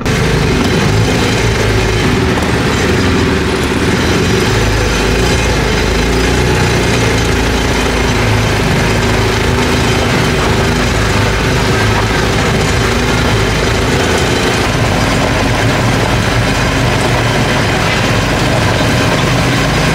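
Sprint car's V8 engine running steadily at low speed, heard up close from on board the car. It cuts in suddenly at the start and stays loud and even, without big revs.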